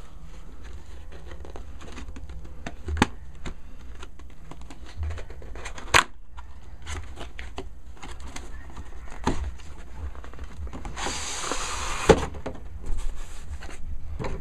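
Cardboard retail packaging being opened and handled: scattered clicks, taps and scrapes of box flaps and an inner card tray, with a rasping slide of card about eleven seconds in and a sharp knock just after, over a steady low hum.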